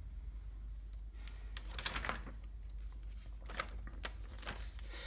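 Wiring-harness plugs and wires being handled: a series of small plastic clicks and rustles starting about a second in, over a steady low hum.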